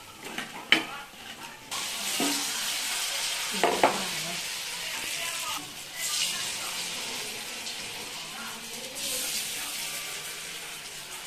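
A metal spatula knocks and scrapes against a wok as fried fritters are lifted out. Then hot oil sizzles steadily from about two seconds in, as fresh battered pieces deep-fry, with a few more knocks of the spatula.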